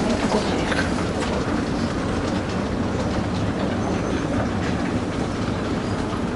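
Strong wind in a snowstorm buffeting the microphone in a steady low rumble, with light crunching footsteps on snow and ice.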